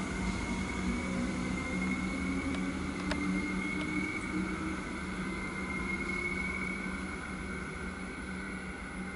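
Electric train running with a steady low hum and a high-pitched whine, slowly fading as it moves away.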